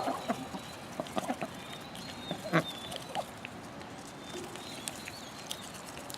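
Backyard chickens and ducks pecking at salad: a scattering of short clucks and pecks, the loudest about two and a half seconds in, over a faint thin high-pitched call.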